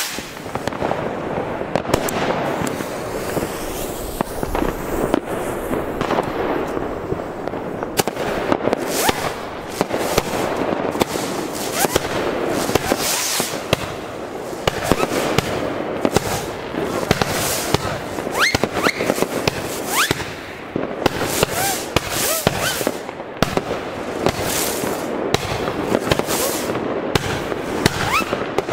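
Lesli Toschpyro 9 firework battery firing its mosquito and white strobe fire-pot effects: a long run of sharp launch shots that come much faster after about 8 seconds, with many short rising whistles from the mosquitoes.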